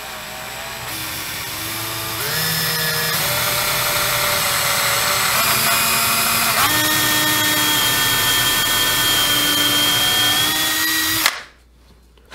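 Handheld power drill boring a pilot hole through a wooden box lid into a scrap board below. It runs steadily for about eleven seconds, its pitch shifting in steps a couple of times as the load changes, then stops suddenly.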